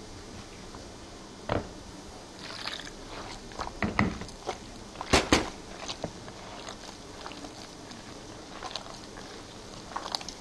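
Hands kneading a sticky spelt-flour dough in a mixing bowl: irregular soft squelches and knocks, with two sharper knocks close together about five seconds in.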